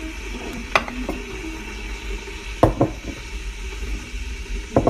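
Kitchenware knocked and clinked a few times: a single sharp click, then two quick pairs of clicks, over a steady low hum.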